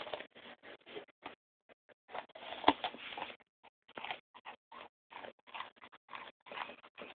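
A dog chewing and crunching into a pumpkin: short, irregular bites in quick succession, with a busier run of chewing and one sharp crack about two and a half seconds in.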